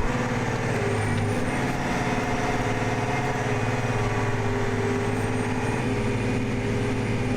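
John Deere 9620R four-wheel-drive tractor's diesel engine running steadily while pulling a disc ripper in ninth gear, under fairly light load. Its pitch dips slightly about six seconds in.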